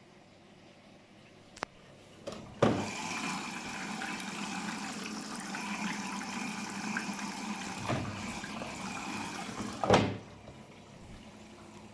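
Daewoo DWD-FT1013 washing machine taking in water for a rinse: after a click, the water inlet starts with a sudden rush of water into the drum, runs steadily for about seven seconds, and shuts off with a sharp knock.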